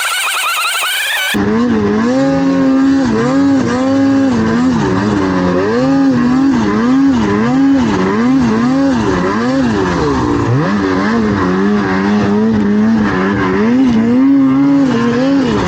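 Snowmobile engine revved up and down over and over, about once a second, as the throttle is worked on and off. In the first second or so a higher, rising engine whine is heard.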